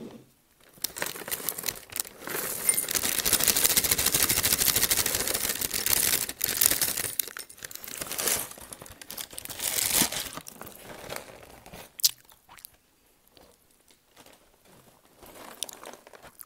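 Dry, square crunchy cereal pouring out of a crinkling plastic bag liner into a ceramic bowl: a steady rattling rush of pieces for several seconds, then a few shorter pours and bag rustles.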